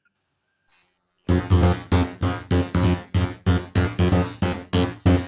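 Electronic keyboard or synthesizer music: short staccato chords repeating about four times a second, starting suddenly after a second of silence.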